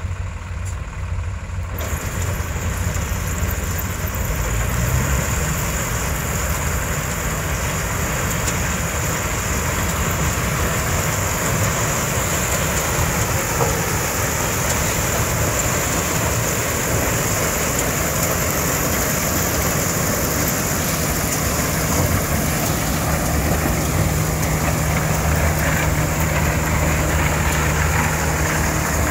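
Claas Crop Tiger 40 combine harvester running under load as it cuts and threshes dry maize: a steady, dense mechanical din of engine and threshing machinery, which grows fuller about two seconds in.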